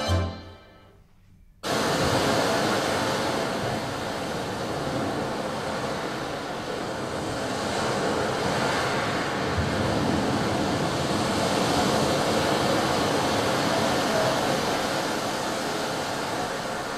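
Steady rushing noise that cuts in suddenly about a second and a half in and swells a little in the middle: a stage sound effect played over the theatre's speakers.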